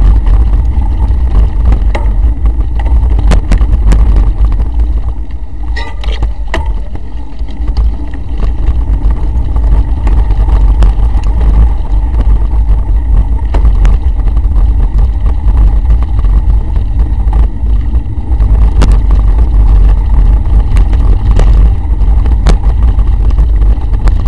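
Wind buffeting the microphone of a camera riding along on a mountain bike over a dirt track, with many sharp knocks and rattles from the bike and camera mount over bumps. The rumble eases for a couple of seconds about six seconds in, then comes back.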